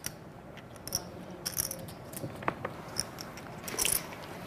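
Poker chips clicking against one another in scattered, irregular clacks as they are handled and stacked on the table.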